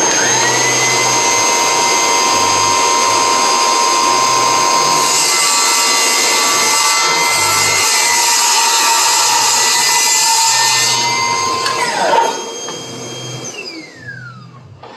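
Milwaukee cordless, battery-powered table saw running with a steady high whine. A board is fed through the blade, and the cutting noise is loudest about five to eleven seconds in. About twelve seconds in, a sharp knock, then the saw is switched off and its whine falls away as the blade spins down.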